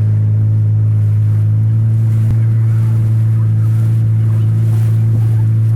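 A boat's engine running steadily at a constant speed, a loud low hum with no change in pitch.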